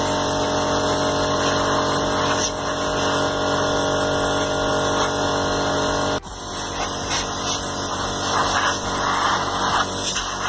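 Air compressor motor running with a steady hum. About six seconds in, the sound changes abruptly to uneven hissing bursts of compressed air from a blow gun, blasting dust out of a minibar's heat sink and fan.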